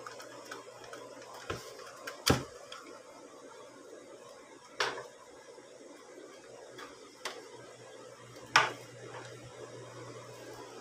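Handling clicks and knocks from a Newifi D2 router being worked by hand as its power plug and cables are pushed in and its reset button pressed: about five sharp clicks, the loudest about two seconds in and late on, over a faint low steady hum.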